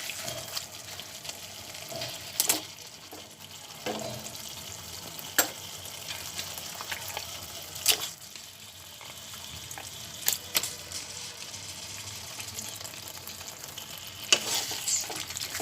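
Chicken pieces sizzling in oil and ground masala in a kadai while being stirred, with a few sharp knocks of the spoon against the pan.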